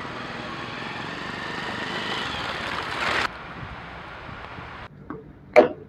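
Vehicle on the move, a steady rushing road and wind noise that cuts off abruptly about three seconds in and gives way to a quieter hiss, with a short sharp knock near the end.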